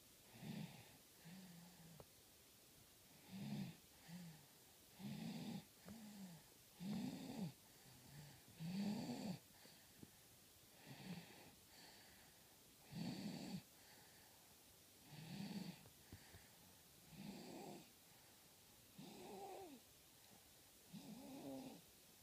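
Baby snoring softly in sleep: a short, low snore on roughly every breath, about one every one to two seconds.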